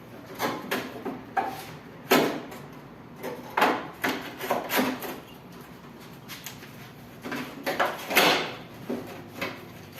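Irregular knocks, clatter and scraping of parts being handled and set in place while reassembling a window air conditioner.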